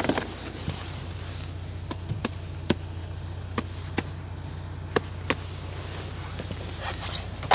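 Car engine idling with a steady low hum through the open passenger door, with a few scattered light knocks as someone gets into the seat. The car door slams shut at the end, and the hum drops away.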